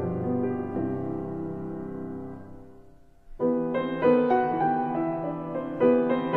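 Background piano music: one passage fades out, and a new tune starts about three and a half seconds in.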